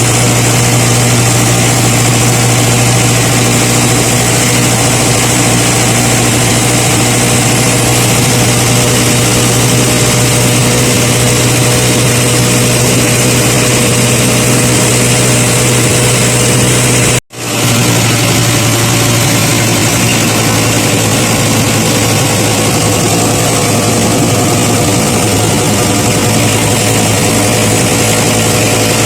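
An engine running steadily at constant speed with a low, even hum. It cuts out for a split second about two-thirds of the way through, then carries on unchanged.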